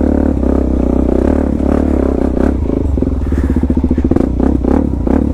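Suzuki DR-Z400S single-cylinder four-stroke engine with a slip-on exhaust, running at low revs as the dirt bike rides over rocks. Its individual firing pulses come through plainly from about halfway in. A few sharp knocks from the bike striking rocks are heard along the way.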